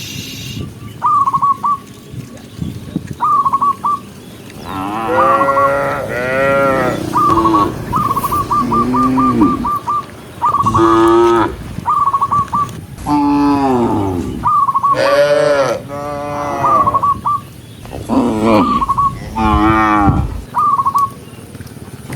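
Cattle mooing again and again, one long call after another, with short high trilling calls between the moos.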